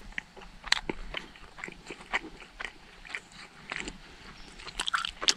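Someone biting and chewing a blueberry maple meat stick: irregular small crunches and wet clicks of chewing.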